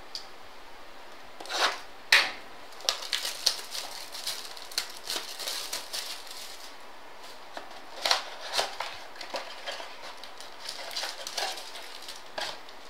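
Trading-card packs and boxes being handled: a run of crinkling, rustling and light clicks, with louder crackles about two seconds in and again about eight seconds in.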